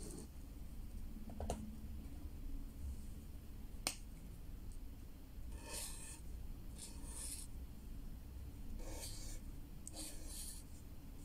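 Black felt-tip marker scratching across paper in several short strokes in the second half, as small hearts are drawn. Two sharp clicks come earlier, in the first four seconds.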